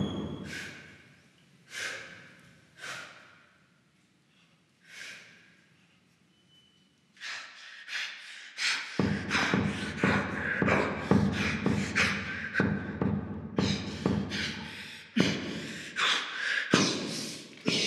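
People's heavy breathing and gasps: a few separate breaths at first, then from about seven seconds in rapid, louder panting at two or three breaths a second.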